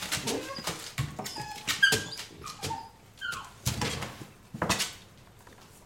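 Chocolate Labrador retriever puppy whining in a series of short, high squeaks, among scattered knocks and rustling.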